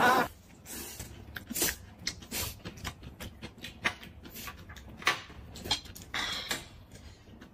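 Mukbang-style eating sounds: a fresh cucumber being bitten and chewed and noodles being slurped, heard as a string of soft, irregular crunches and clicks with a brief hissing slurp near the end.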